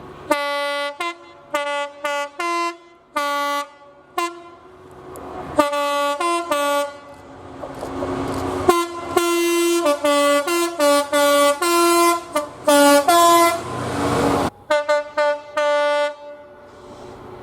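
Train horn sounded in a rapid string of short toots and longer blasts, stepping back and forth between two notes. The rushing noise of a passing train swells under the horn around the middle and again near the end.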